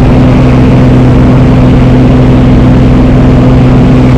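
Propeller-driven skydiving jump plane's engine running, a loud steady drone with an unchanging low hum.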